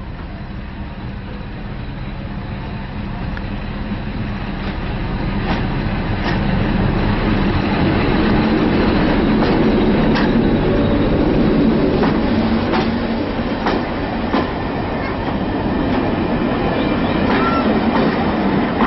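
BR Class 73 electro-diesel locomotive running on its diesel engine as it approaches and passes close by, growing louder to a peak about halfway through, then its coaches rolling past with wheels clicking over the rail joints.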